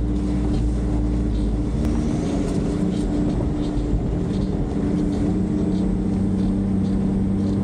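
A 4x4's engine running steadily, heard from inside the cabin while driving slowly on a dirt track, with a steady hum. A deep rumble eases about two seconds in.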